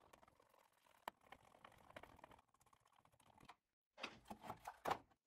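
Mostly near silence, with faint clicks and knocks of the plastic battery-charger case being handled and screwed back together with a hand screwdriver; a cluster of sharper clicks comes near the end.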